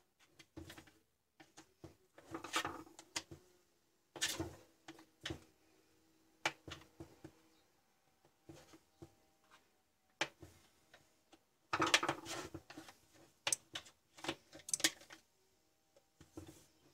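Flat-blade screwdriver prying and scraping at the plastic switch cover of a large angle grinder, with irregular clicks and knocks of plastic and metal as the cover is worked loose. The busiest, loudest scraping comes about twelve seconds in.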